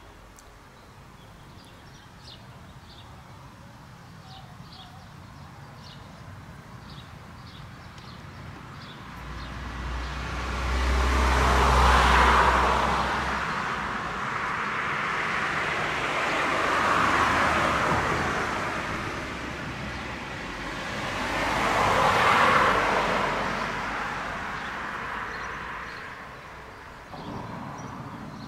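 Three road vehicles drive past one after another, about five seconds apart, each swelling and fading with engine and tyre noise; the first has a deep rumble. Faint bird chirps come near the start.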